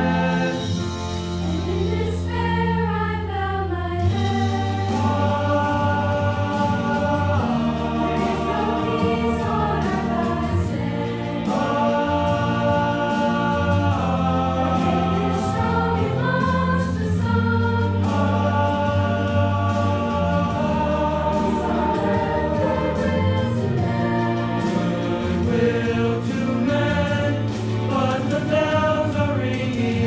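A school choir of teenage voices singing a Christmas holiday song together, several voices at once, without a break.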